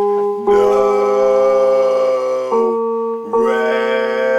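Music: sustained chords of held notes that change about half a second in, around two and a half seconds in, and again a little after three seconds.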